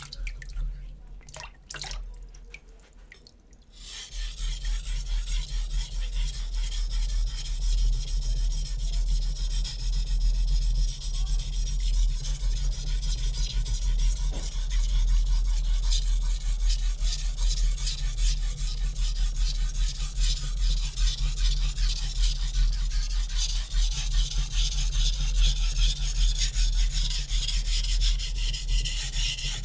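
Shun Classic chef knife's hard (61 Rockwell) steel edge stroked back and forth on a wet 400-grit Naniwa Superstone whetstone, a steady gritty rubbing. It starts about four seconds in after a few faint clicks. The stone is slow to cut steel this hard.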